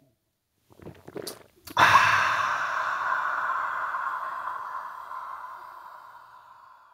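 Two men let out a loud, drawn-out "aaah" together after gulping from their mugs. It starts suddenly a couple of seconds in and fades away slowly over several seconds. Just before it come a few faint sipping sounds.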